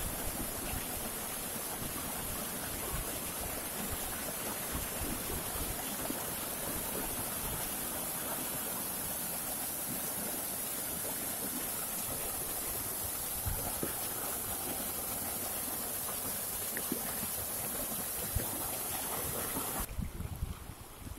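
Mountain stream rushing over rocks in small cascades, a steady, even rush of white water. About a second before the end the rushing drops away abruptly and uneven low rumbles take over.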